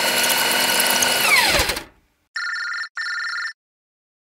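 A loud whirring noise whose pitch drops away as it winds down, cutting off about two seconds in. After a short gap, a video call's ringtone sounds two short electronic rings.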